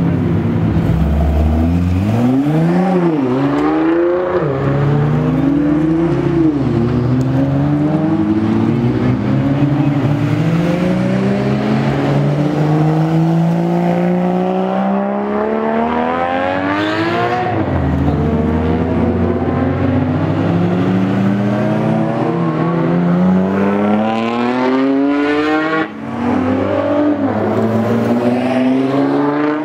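Nissan Skyline GT-R and R35 GT-R engines accelerating hard away one after another, each engine's pitch climbing through a gear and dropping back at the upshift, with several cars heard at once.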